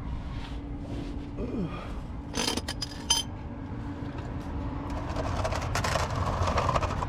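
Metal clinks of tools working on a car's oil filter, a few sharp clinks about halfway through, then scraping and rattling near the end as the tight filter is worked at.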